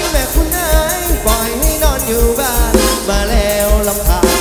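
Live band playing Thai ramwong dance music: a wavering lead melody over a steady bass-drum beat.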